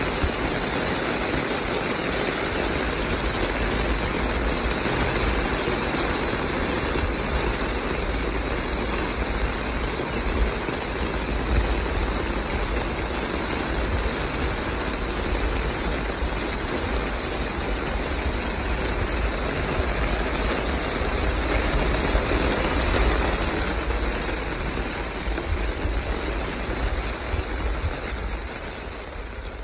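Heavy rain falling on concrete, with runoff water rushing across the pavement and pouring from a drain outlet: a steady wash of noise with a deep rumble underneath, fading out at the very end.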